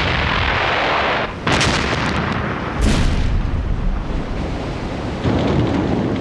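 Shellfire and explosions: a continuous blast noise with two sharp new bangs, about one and a half and three seconds in.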